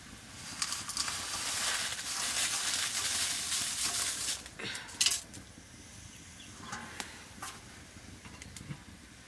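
Crumbled dry noodles poured into hot oil in an iron frying pan, sizzling loudly for about four seconds before dying down. A sharp metal clink follows, then a few lighter clinks and taps.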